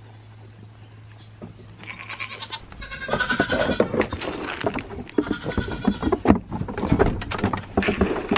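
Goats bleating, starting about three seconds in, amid knocking and rustling.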